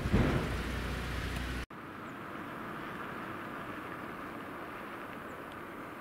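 Steady outdoor background noise with a low rumble and a brief louder knock at the start. It cuts off abruptly a little under two seconds in, leaving a quieter, even, distant hum.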